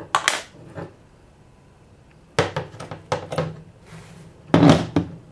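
Small metal parts clicking and clinking as a brass airsoft hop-up chamber is worked off its inner barrel, with a cluster of clicks a little after two seconds and a louder clack near the end.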